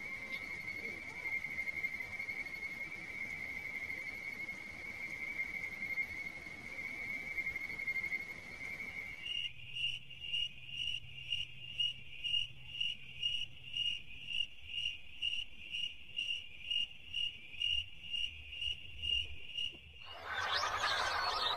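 Insects calling: a steady high-pitched drone for about the first nine seconds, then a sudden change to a high chirp repeating about twice a second. Near the end a louder, denser chorus of calls comes in abruptly.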